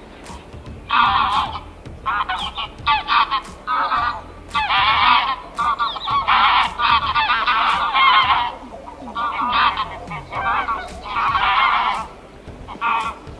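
Birds calling over and over, in bursts of quick repeated calls separated by short gaps.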